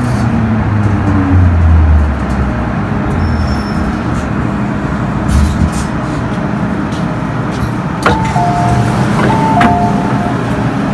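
MTR M-Train coming to a stop at a station, the falling hum of its traction motors dying away in the first two seconds, over a steady cabin rumble. About eight seconds in, a two-tone door warning chime sounds repeatedly for about two seconds.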